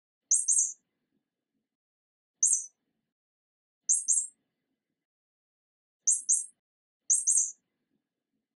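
High-pitched mouse squeaks, five short bursts one to two seconds apart, most of them a quick double squeak.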